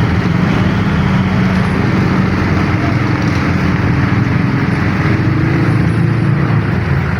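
A road vehicle's engine running steadily: a continuous low drone mixed with road noise.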